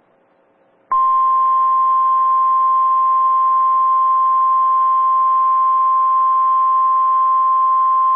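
Weather radio warning alarm tone: one loud, steady single-pitched beep starting about a second in, over faint radio hiss. It is the alert that comes before a severe thunderstorm warning.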